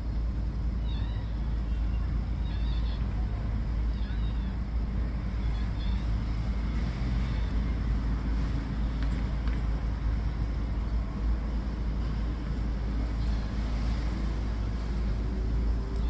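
Steady low outdoor rumble, with faint high bird chirps every second or so during the first six seconds.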